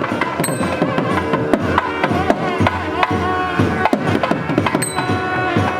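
Temple festival procession music: drums struck in a quick, busy rhythm under a held, wavering melody line.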